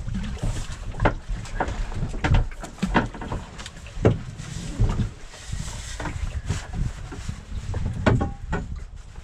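Irregular knocks, clicks and clunks of hands handling gear on a boat, over a low wind rumble on the microphone.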